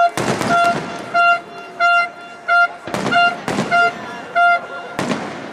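A horn honking in a steady rhythm of short blasts on one pitch, about one and a half a second, over the crackle of fireworks. A sharp firework bang cuts in about three seconds in and another about five seconds in.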